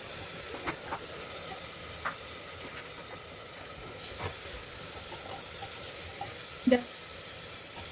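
Chopped onions and ginger-garlic paste sizzling in mustard oil in a pressure cooker, stirred with a wooden spatula. The spatula knocks and scrapes against the pot a few times, loudest near the end.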